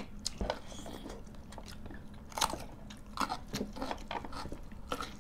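People chewing and biting food, with irregular short crunches and clicks.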